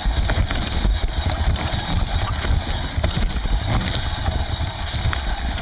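Mountain bike riding over rough woodland singletrack, heard from a seatpost-mounted camera: a steady rumble of tyres on dirt and frame vibration, with wind on the microphone and many small rattles and knocks from the bike.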